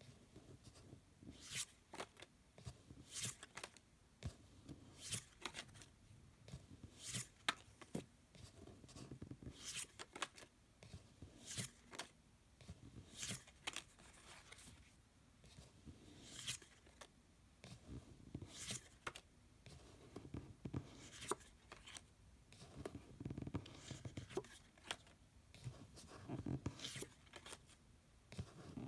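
Faint handling of a deck of oracle cards: a card slid off the pile and laid down about every second or two, each a short sharp swish of card on card, with soft rustling of fingers and cards between.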